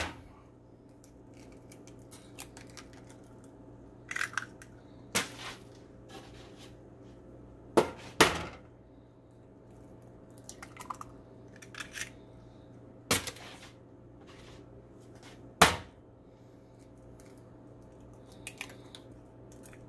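Eggshells being knocked against a frying pan and cracked open by hand: several separate sharp knocks, a few in quick pairs, with quiet stretches between as the eggs go into the pan one at a time.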